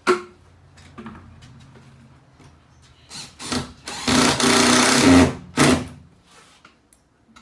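A handheld power tool, such as a drill, clicks on and its motor runs with a low steady hum. About three seconds in it turns to a loud, harsh cutting noise for about two seconds, then stops about six seconds in.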